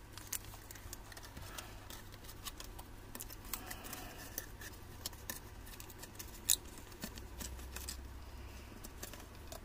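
Cardboard box and plastic blister pack being handled: scattered small clicks and rustles, with one sharper click about six and a half seconds in. A low rumble of distant thunder swells near the end.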